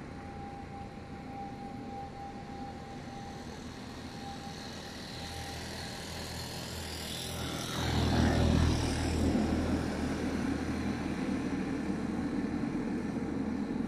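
Airplane engines passing close by. The rush builds to a peak about eight seconds in, with high-pitched whines sliding down in pitch as it goes by, and gives way to a steady low engine rumble.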